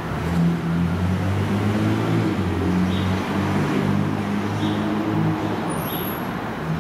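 Kawasaki R62 subway train with GE DC traction motors approaching on an elevated line, giving a low hum whose tones shift in steps.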